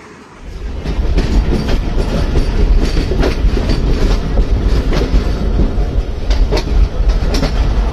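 Passenger coach of a diesel-hauled express train running at speed, heard from its open doorway: a heavy rumble with the wheels clacking irregularly over rail joints. The noise comes up sharply within the first second.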